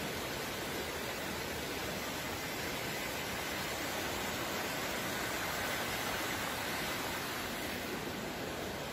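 Fast-flowing floodwater rushing through a street: a steady, even rush of water noise.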